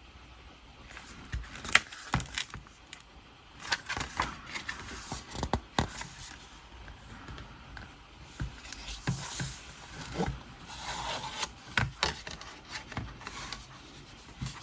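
Hands handling CD packaging: card and paper sliding and rustling, with repeated sharp clicks and taps, the sharpest about two seconds in.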